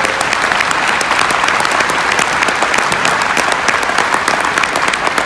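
Audience applauding: many people clapping together, loud and steady.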